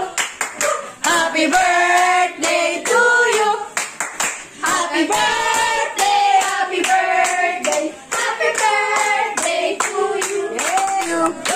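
A group of voices singing a birthday song together, with hands clapping along.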